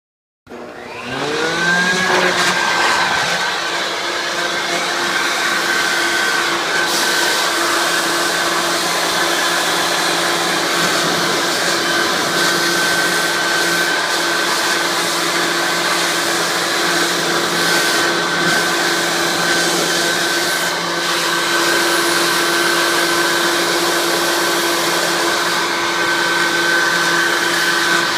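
Leaf blower starting up with a rising whine about half a second in, then running steadily at full speed to blow dust out of computer parts.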